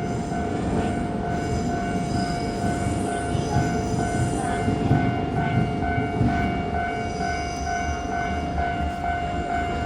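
Japanese level-crossing warning bell ringing in a steady repeating rhythm while a Keisei Main Line train rumbles through the crossing.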